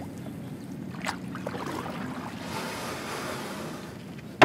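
Ocean waves washing, swelling about two and a half seconds in, with a small click about a second in and a sharp, loud click at the very end.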